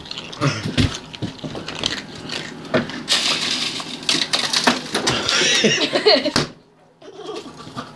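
Close-up handling noises: a run of sharp knocks and clicks mixed with crunching, rustling stretches, cutting off abruptly near the end.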